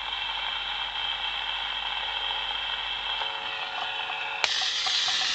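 Steady hiss from a germanium-diode noise generator amplified by two transistor stages, played through a small transistor-radio loudspeaker, with most of its energy around 2–4 kHz and a faint hum under it. A little over four seconds in there is a click, and the hiss turns brighter and slightly louder.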